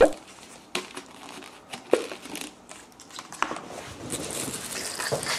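Plastic packaging crinkling and rustling as a yogurt cup is opened, with four or five sharp clicks, the loudest at the very start, and a steadier rustle over the last second or so.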